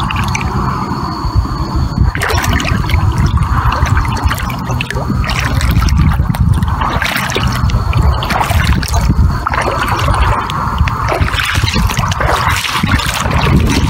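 Shallow water sloshing and trickling around the legs of someone wading shin-deep, with irregular small splashes over a continuous low rumble.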